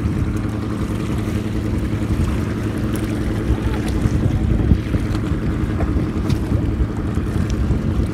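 A boat's engine running steadily, a constant low hum under the open-air noise of the water.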